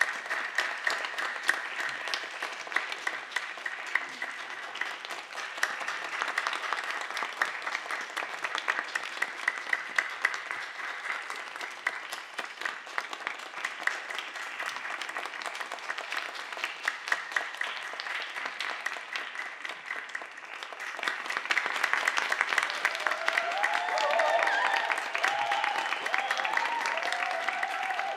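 Audience applauding in a concert hall, a dense steady clapping that dips briefly and then swells louder about three quarters of the way through, with a few voices calling out near the end.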